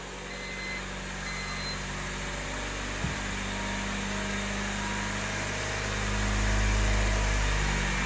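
Honda Civic EK sedan's four-cylinder engine idling steadily, newly running after a crank-no-start fault cured by a new fuel pump and spark plugs. It grows louder about six seconds in, with a few short electronic beeps in the first two seconds and a small click about three seconds in.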